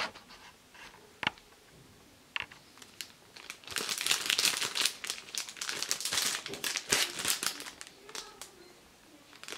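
Clear plastic bag crinkling as it is handled and turned over in the hands: a few light ticks at first, then dense crinkling for about four seconds from a little under four seconds in.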